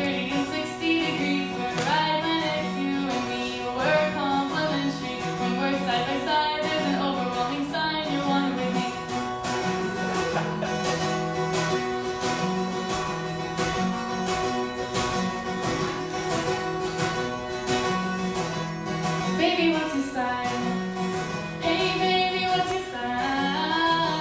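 A woman singing, accompanying herself on a strummed acoustic guitar in a live performance. The voice drops out about eight seconds in for a guitar-only passage of strumming, and the singing comes back near the end.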